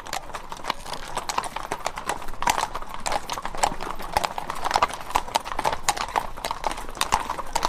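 Hooves of two ridden horses clip-clopping at a walk on an asphalt road, their strikes overlapping in an uneven rhythm of several sharp clops a second.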